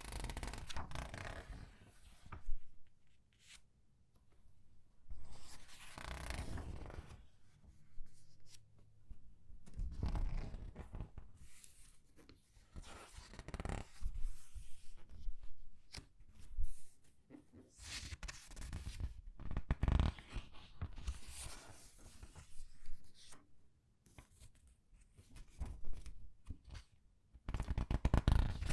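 Comic book pages being turned slowly one after another, each turn a paper rustle lasting a second or two, with the pages squeezed so they crinkle.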